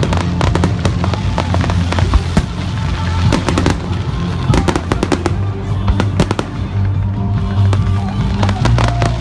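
Fireworks display going off: a rapid, irregular string of sharp bangs and crackles, with music and its steady bass playing underneath.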